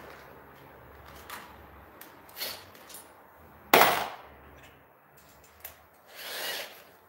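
Workshop handling noises from tools and the frame on the bench: a few light knocks, one sharp, loud knock a little under four seconds in with a short ring, and a brief scraping rub about six seconds in. No drill is running.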